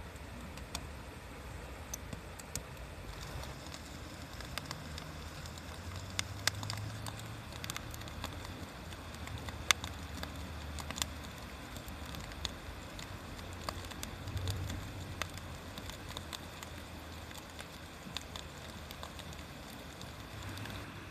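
Wood bonfire crackling, with irregular sharp pops and snaps over a steady hiss. A low rumble runs underneath.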